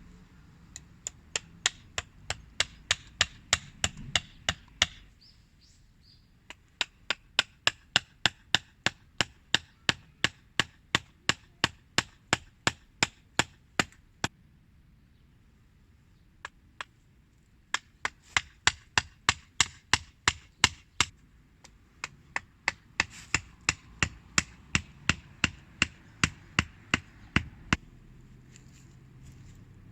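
Rapid, even chopping strikes, about three a second, in runs of several seconds broken by short pauses.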